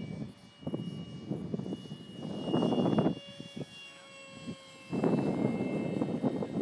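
Brushless electric motor and propeller of a radio-controlled plane running with a steady high whine, broken by loud rushing bursts.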